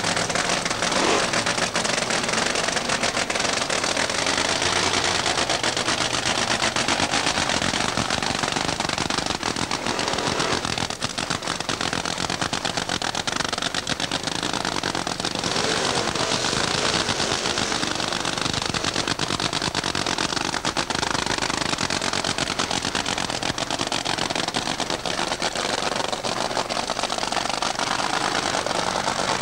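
Supercharged drag-racing funny car engine running, its open exhaust firing as a very rapid, continuous crackle of pops.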